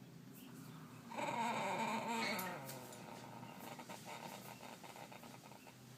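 A horse snoring in its sleep: one loud snore about a second in, lasting about a second and a half, then trailing off into a softer fluttering rattle.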